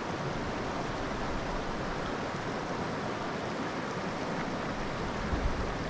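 Steady rush of creek water flowing.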